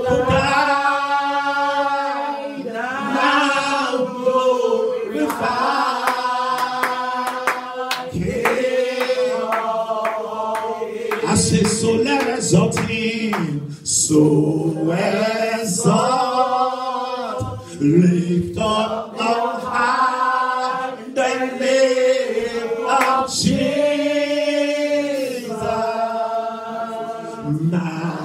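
A man singing a slow, unaccompanied worship song into a microphone, holding long notes and sliding between them.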